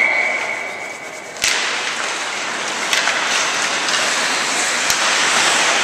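Ice hockey play in an indoor rink: a thin steady tone for about a second and a half, then a sharp knock and a steady rush of rink noise, with a couple of faint stick or puck clicks.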